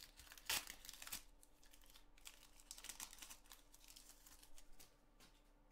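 Faint crinkling and light clicking of a foil trading-card pack being handled and opened, with short rustles about half a second and a second in, then softer scattered ticks.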